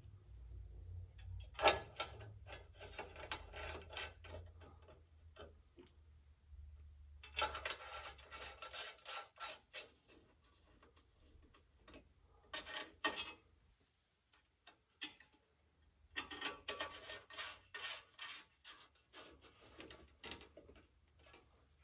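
Metal hardware being worked by hand on a car's front-end brace and hood latch assembly: four bursts of dense clicking and scraping with quieter pauses between them.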